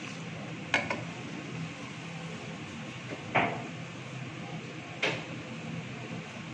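Black slotted spatula scraping and knocking against a non-stick wok while stirring a thin curry gravy: three short strikes about two seconds apart, over a steady low hum.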